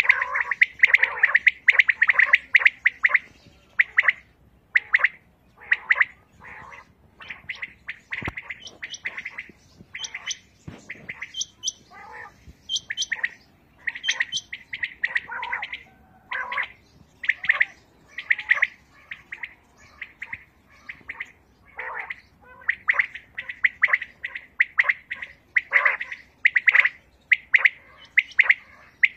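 Many caged quails calling together. Short, sharp calls repeat and overlap one another without a break. These are quails kept as calling birds for quail hunting.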